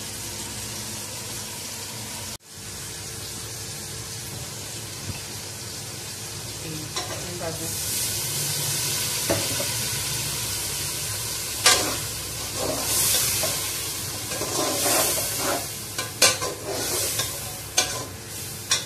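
Onion-tomato masala sizzling as it fries in a large aluminium pot, stirred with a metal ladle; the sizzle grows louder about halfway through. Several sharp knocks of the ladle against the pot in the second half.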